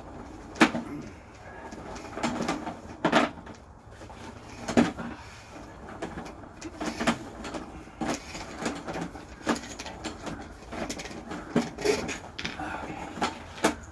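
Irregular sharp knocks and clicks, a second or two apart, over faint voices.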